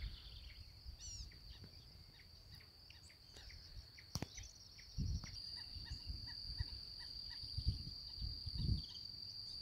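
A steady, high insect trill, like a cricket, with scattered faint bird chirps and whistles over it. A few soft low thumps come about halfway through and near the end.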